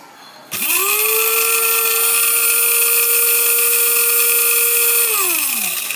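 Small 130-watt electric blade coffee and spice grinder motor spinning up with a quick rising whine, running at a steady high pitch for about four and a half seconds while grinding sunflower kernels, then winding down with falling pitch as the button is let go.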